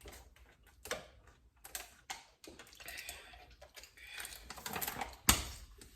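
Irregular light clicks and taps of food and utensils being handled at a table, with one sharper knock near the end.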